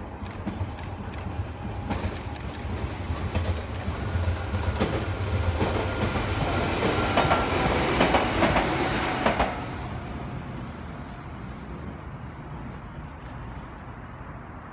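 Nishitetsu 600 series electric train crossing a bridge, growing steadily louder as it approaches, its wheels clattering over rail joints with a steady high whine. It passes close about eight seconds in, and the sound drops off sharply near the ten-second mark, leaving a low fading rumble.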